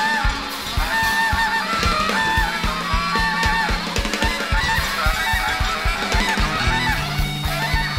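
Free-jazz band music from saxophone, guitars, bass and drums: fast, dense drumming and bass notes under a high lead line that bends and wavers in pitch.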